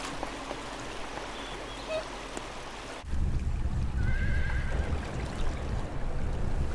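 Outdoor noise with a few faint short chirps, then after an abrupt cut about three seconds in a steady low rumble, over which a brief wavering animal call sounds about a second later.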